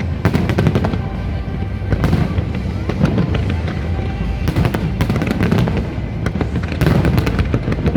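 Fireworks display: many crackling bursts and bangs in quick succession over a continuous low rumble.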